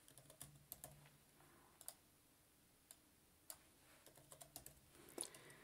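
Faint, scattered computer keyboard clicks as text is typed and selected in a code editor, with near silence between them.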